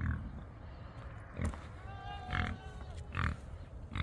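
Footsteps at about one a second while walking across the farmyard, with a faint drawn-out farm-animal call in the middle.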